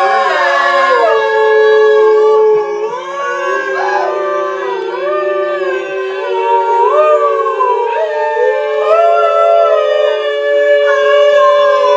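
A group of voices singing long sustained 'om' tones together, each held for as long as the singers can. Several notes at different pitches overlap, waver and slide up and down, and a lower voice drops out about halfway through.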